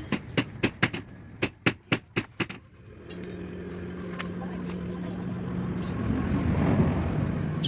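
A hammer strikes iron about nine times in quick succession, roughly four blows a second. Then, about three seconds in, a workshop motor starts and runs with a steady hum and a growing wash of noise.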